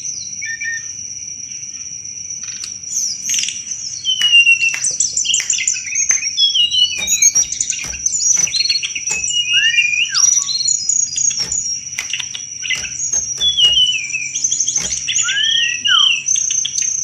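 Tledekan gunung singing a fast, varied chattering song ('cetrekan'), made of rapid trills, chirps and down-slurred whistles, over a steady high-pitched tone.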